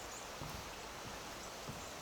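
A few soft, faint footsteps on forest ground over steady outdoor background noise.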